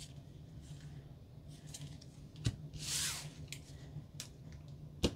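Faint handling of Pokémon trading cards: a few light taps and a short swishing rustle about three seconds in, over a low steady hum.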